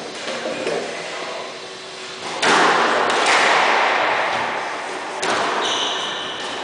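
Squash rally: sharp cracks of the ball off the rackets and the court walls, each ringing on in the court, a few times about a second apart. Near the end comes a high squeak of court shoes on the wooden floor.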